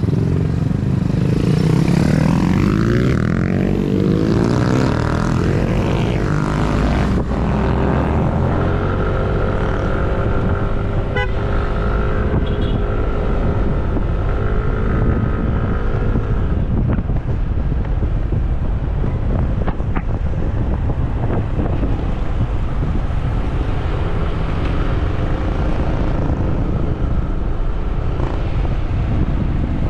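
Motorcycles pulling away together, their engine notes rising over the first few seconds. Then a Yamaha automatic scooter runs at a steady cruise of about 50 km/h, with heavy wind rumble on the microphone.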